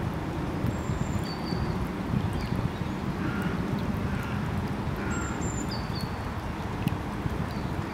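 Short, thin, high bird call notes recur every second or two over a steady low rumble of background noise.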